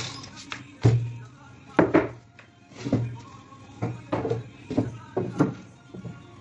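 Irregular knocks on MDF cabinet panels as the box is put together, some about a second apart and some in quick pairs, each with a short hollow ring.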